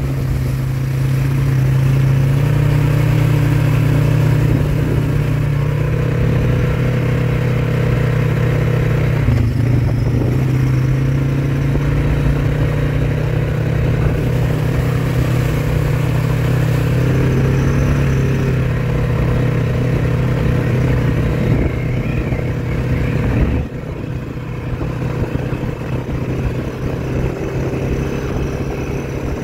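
Four-wheeler ATV engine running steadily while riding, the engine note dropping to a lower level near the end.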